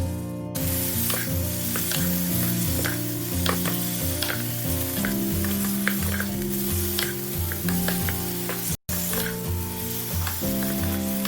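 Food sizzling in hot oil in an electric cooking pot while it is stirred, with scattered clicks of the utensil against the pot, over background music. The sound drops out for an instant about nine seconds in.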